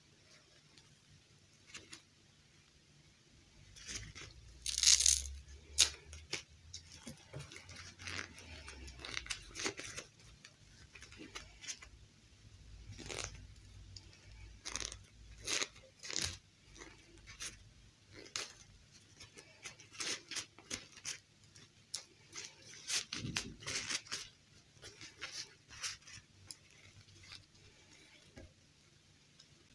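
Hands undressing a plastic fashion doll: the dress fabric rustling and crinkling, with small clicks and knocks from the doll's plastic body, in irregular bursts that are loudest about five seconds in.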